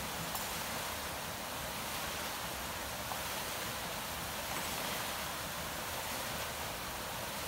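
Water splashing and pouring off the paddles of a turning wooden watermill wheel: a steady rushing, with a few faint clicks.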